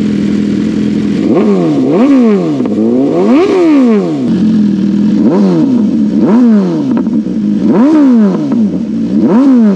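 BMW S1000RR inline-four superbike through an Austin Racing slip-on exhaust, idling briefly and then blipped sharply about seven times. Each blip rises quickly in pitch and drops back to idle.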